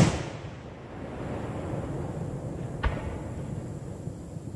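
An aerial firework shell bursting with one sharp boom that echoes away over about a second. A smaller, fainter bang follows about three seconds in.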